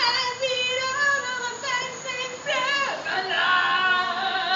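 A woman's voice singing a few long held notes without words, high-pitched, with one note sliding down about halfway through.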